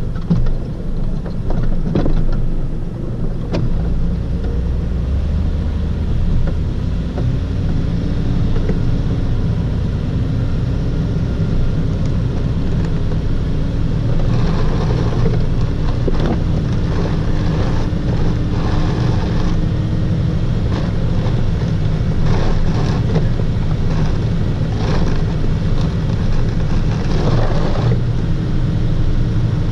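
Chevy 2500HD's 8.1-litre V8 running steadily under load while plowing snow, its note shifting slowly in pitch. A couple of sharp knocks sound in the first few seconds.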